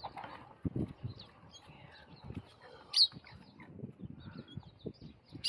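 Birds chirping in the background: scattered short chirps and calls, with a louder sharp note about three seconds in, over soft low knocks and rustles.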